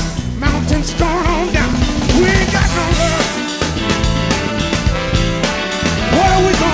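Live soul-blues band playing an instrumental passage: drum kit and bass keep a steady groove under a lead melody line of wavering, bending notes.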